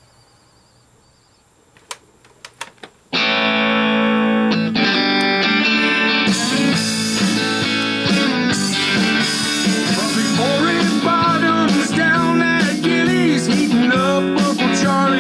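A few quiet seconds with several sharp clicks, then a song's instrumental intro starts suddenly about three seconds in: guitar chords with a lead line that bends notes from about nine seconds on.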